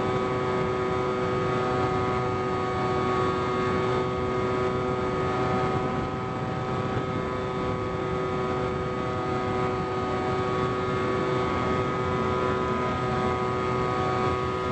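Electric motor and propeller of a Bix3 foam RC plane running at steady throttle in flight: an even, unchanging whine of several tones together. Wind rushes over the onboard microphone.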